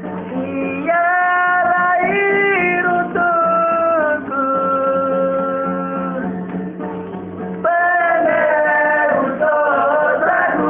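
Singing: voices holding long notes that step up and down in pitch, over a steady low accompanying tone.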